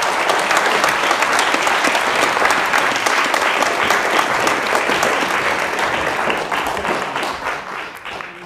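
Audience applauding: many hands clapping together in a dense patter, which thins out and fades over the last couple of seconds.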